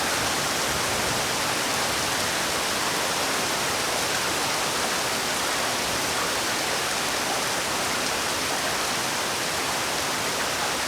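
Heavy rain falling steadily as a dense, even hiss, with no single drops standing out.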